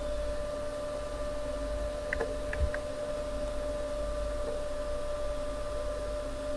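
Steady electrical hum and hiss of the recording setup, with a few faint clicks about two to three seconds in.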